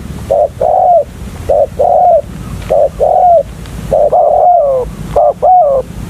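Spotted dove cooing, repeating its phrase about four times: each a short coo followed by a longer coo that falls off at the end.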